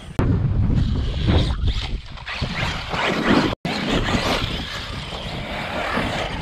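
Electric RC truck running over dirt jumps, mixed with heavy wind rumble on the microphone. The sound cuts out completely for an instant a little past halfway.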